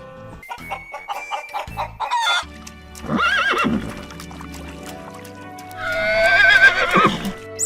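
A rooster crowing over background music, with a shorter call about three seconds in and a long, wavering crow near the end.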